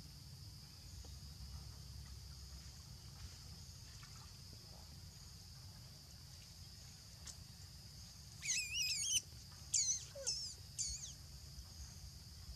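High-pitched, wavering squealing animal calls: one burst about eight seconds in, then three shorter calls in quick succession. Underneath is a steady high insect drone and a low background hum.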